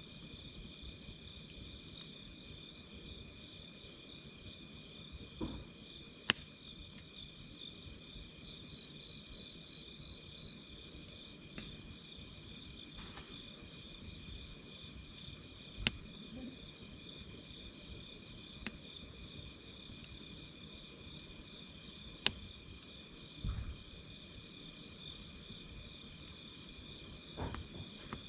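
Campfire crackling with occasional sharp pops, three of them loud, over a steady high chirring chorus of crickets.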